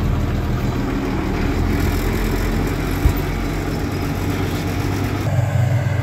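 Combine harvester running steadily while harvesting corn, heard from the cab. A single sharp knock comes about halfway through, and the tone of the machine changes abruptly near the end.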